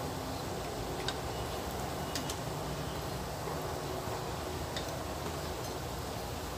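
Breaded banana-filled bread rolls deep-frying in a pan of hot oil: a steady sizzle with a few sharp pops, about one second, two seconds and near five seconds in.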